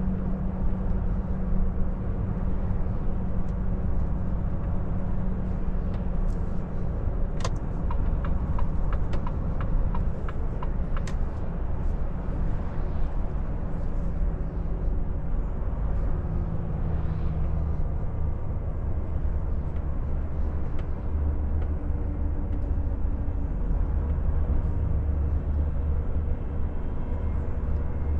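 Inside the cab of a Volvo FH460 truck, its 13-litre six-cylinder diesel and the road noise making a steady low rumble as the truck slows down. About a third of the way in comes a short run of about ten evenly spaced clicks.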